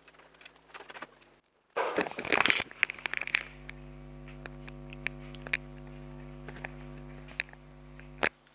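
A burst of rustling and clicking handling noise about two seconds in, then a steady low hum with scattered light clicks that cuts off abruptly near the end.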